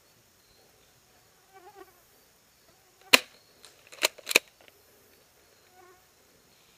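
Three sharp airsoft gun shots: a single loud one about three seconds in, then two more close together about a second later.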